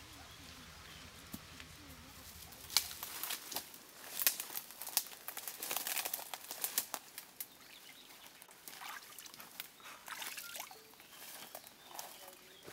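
Leaves and twigs rustling and snapping as someone moves and crouches in dense undergrowth: an irregular run of sharp crackles starting about three seconds in, thinning out in the second half.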